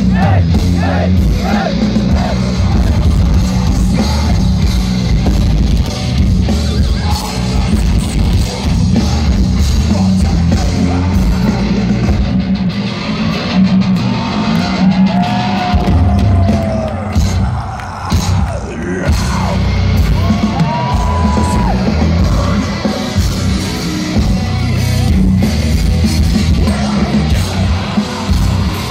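Live heavy metal band playing loud through a festival PA, with sung and shouted vocals over the band; a few long held sung notes come a little past the middle.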